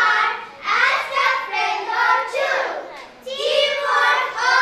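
Children's voices together in phrases, in a sung or chanted delivery, with short breaks about half a second in and about three seconds in.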